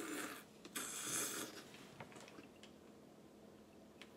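Two short breathy mouth-and-nose noises as a woman takes crab meat into her mouth straight off another person's finger, followed by a few faint clicks of chewing.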